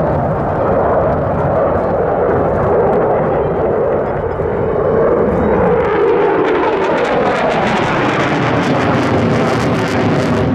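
Jet noise from a JASDF F-15 Eagle's twin turbofan engines as it manoeuvres overhead. The pitch slides down through the first half, then the sound turns rough and crackling as it passes close.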